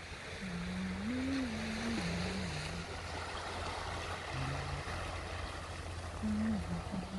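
Waves washing over a rocky shore with wind on the microphone, a steady rushing noise. A low wavering tone comes and goes three times: in the first couple of seconds, briefly around the middle, and near the end.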